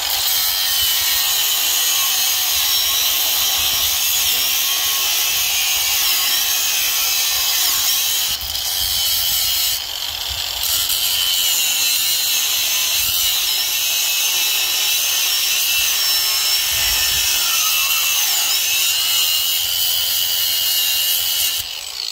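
Angle grinder with a cutoff wheel running under load, cutting through the ends of over-long steel bolts: a steady high whine over a rough grinding hiss, easing off briefly about eight and ten seconds in.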